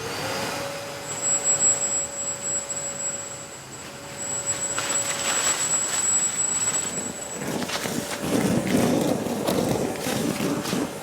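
Kärcher WD wet-and-dry vacuum running in blower mode: air rushing with a steady motor whine, switched on at once. The whine stops about seven and a half seconds in, and an irregular rustling, scraping noise follows.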